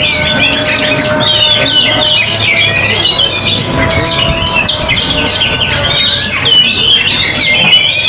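Oriental magpie-robin (kacer) singing: a dense, unbroken stream of fast, sweeping whistled notes mixed with harsher squawks, with a few faint steady tones held underneath.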